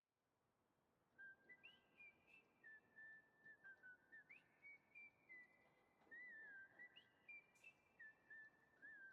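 A faint whistled tune begins about a second in: a run of clear held notes at an even pace, with small slides up and down between them.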